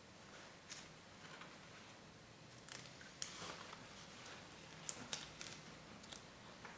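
Faint handling sounds of gloved hands and small tools working over a resin-coated tile: scattered small clicks and short rustles, the sharpest couple of clicks about two-thirds of the way through.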